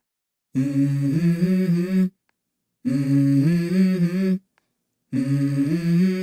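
Background music: one voice humming a melody in three held phrases, each about a second and a half long, with dead silence between them.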